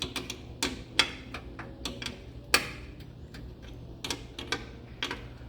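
Irregular sharp metallic clicks and taps of a 7/16 wrench being worked on the bolts that hold a car's door glass to its window regulator, with the two loudest clicks about 1 s and 2.5 s in.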